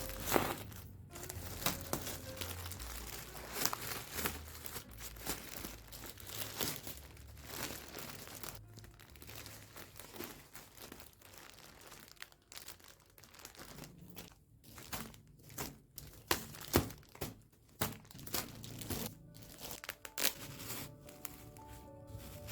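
Packaging crinkling and tearing in irregular bursts as items are unwrapped, over soft background music.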